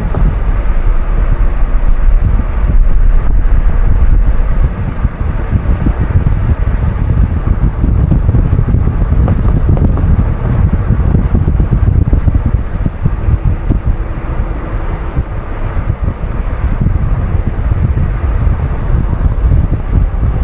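Wind buffeting the microphone over the steady rumble of a car driving along the road.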